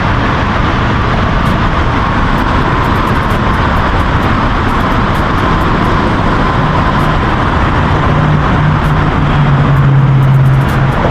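Loud, steady outdoor rushing noise, with a low hum that swells in about eight seconds in and is loudest near the end.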